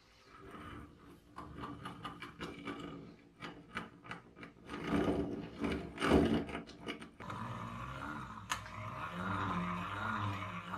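Old British-made hand-cranked grinder being turned by hand: its gears grind and click unevenly, the stiff running of an uncleaned mechanism. About seven seconds in it gives way to a steady whirring hum as the restored grinder's wheel spins smoothly under the crank.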